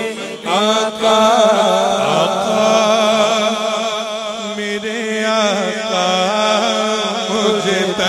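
A man singing a naat, an unaccompanied Urdu devotional song, into a microphone in long wavering melismatic lines, over a steady low hummed drone from a second voice.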